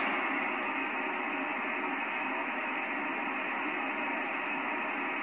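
Shortwave receiver static from an Icom HF transceiver on the 80-metre band: a steady hiss cut off above about 3 kHz, with the MFJ-1026 noise canceller switched off, so the signal on frequency is buried in the local electrical noise.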